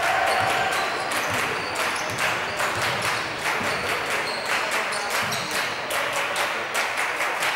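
Basketball game sound in a gym: a basketball being dribbled on the hardwood court, with players' footsteps, short squeaks of shoes on the floor and voices around the hall.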